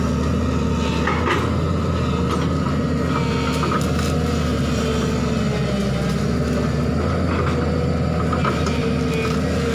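JCB crawler excavator's diesel engine running steadily under load, with a steady whine over the low rumble, as the bucket rakes through brush; a few sharp cracks of breaking branches.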